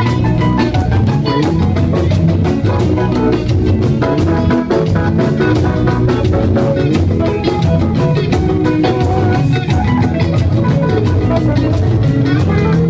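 Live band music with guitar and drum kit playing a steady beat.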